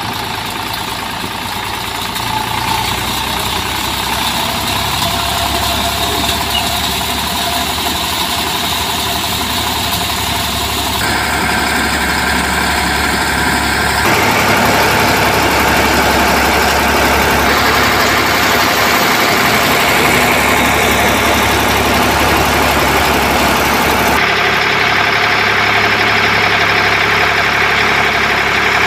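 Eicher 548 tractor's diesel engine running steadily, driving a PTO-powered threshing machine whose drum turns at speed, a continuous loud mechanical running sound.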